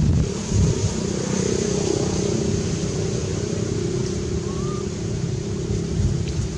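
Wind buffeting the microphone, with a steady engine hum underneath. A brief faint squeak about four and a half seconds in.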